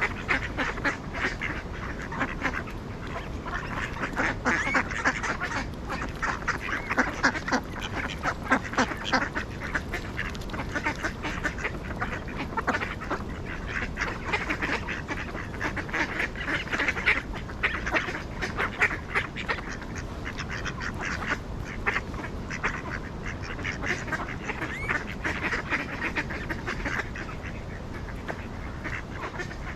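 A flock of ducks quacking continuously, many rapid calls overlapping, swelling a little louder now and then.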